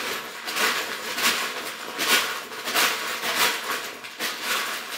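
Plastic K'nex pieces being handled and sorted through: a run of short rustling, clattering handling noises, about one every half second to second.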